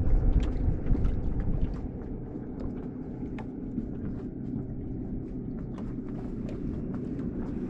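Wind buffeting the microphone for the first couple of seconds, then a boat's motor running with a steady low hum and scattered light ticks.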